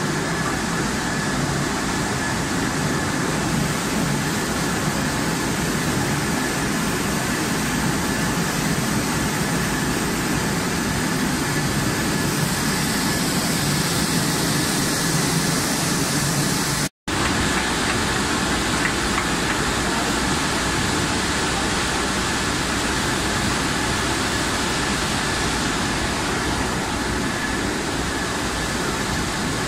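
Steady running din of a French fries processing line: motors, roller conveyors and mesh belts, with a thin steady high whine. The sound drops out for an instant a little past halfway.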